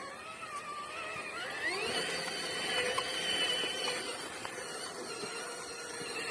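Electric motor and geared drivetrain of an MST CMX Jimny J3 RC crawler whining; the pitch climbs steeply as throttle is applied about a second and a half in, holds high for a couple of seconds, then eases back down.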